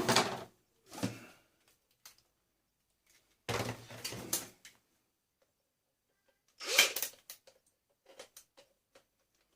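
A few short bursts of metal knocking and clattering from parts of an electric tumble dryer being handled during dismantling, with quiet gaps between; the sharpest clatter comes about two-thirds of the way through, followed by a few small clicks.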